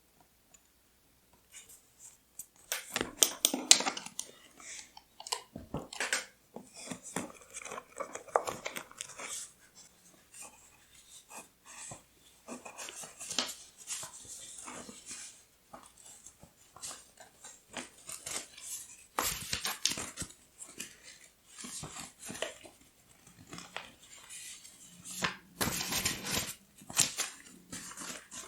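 Paper being handled close up for scrapbooking: irregular crinkling, rustling and small taps, with the loudest flurries about three seconds in, near the twenty-second mark and shortly before the end.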